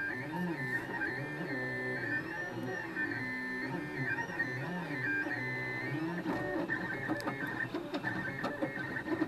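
Desktop 3D printer's stepper motors whining as the print head moves, the tones sliding and stepping in pitch with each change of speed and direction. A run of short clicks comes in about two-thirds of the way through.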